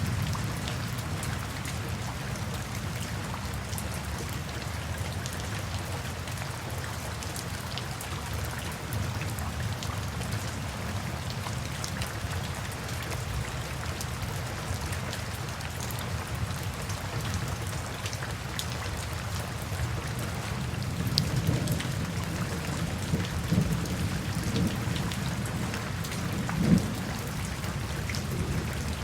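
Steady rain falling, an even hiss with scattered sharp drop hits on a surface over a continuous low rumble. A few louder drop hits come in the last third.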